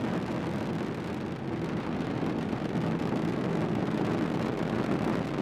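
Falcon 9 rocket's Merlin engines during ascent, a steady low noise with no breaks.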